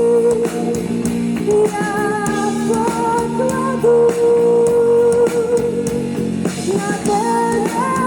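Live psychedelic rock band playing: a voice holding long sung notes over guitar, with drums behind.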